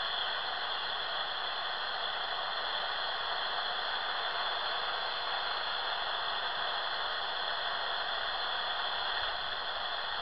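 Shortwave receiver's speaker giving a steady hiss of static, tuned to 14.215 MHz in FM mode with no voice coming through.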